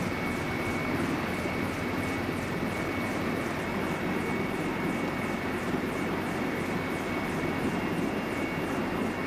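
Steady aircraft engine noise: a dense, even rumble with a constant high whine over it and no change in level.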